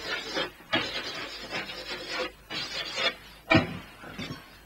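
Chalk scratching on a blackboard in a series of short, uneven strokes as a word is written, then a short louder thump about three and a half seconds in.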